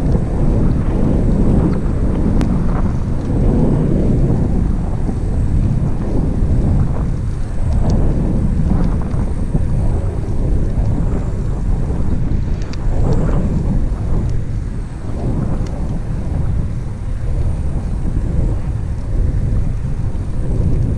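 Wind buffeting the microphone of a camera on a moving bicycle, a loud low rumble of noise that rises and falls a little.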